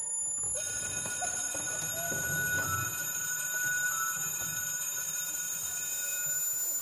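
Electronic sound-design cue: a cluster of steady high ringing tones comes in about half a second in, over a thin high whine that slowly rises in pitch.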